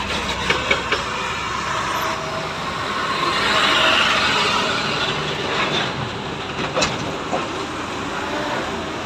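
Heavy diesel engines of trucks and a tracked excavator running, a steady mechanical noise with a few sharp knocks about a second in and again near seven seconds.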